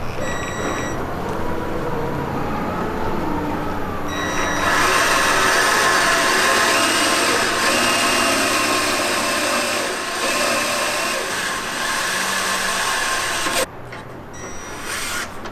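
Electric drill boring through the steel truck frame: a lower running sound first, then a loud, steady cutting noise with a few held high tones for about nine seconds. It stops suddenly near the end.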